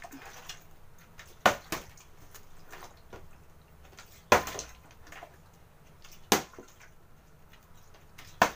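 Partly filled plastic water bottle being flipped and landing on a hard tabletop: four sharp knocks about two seconds apart.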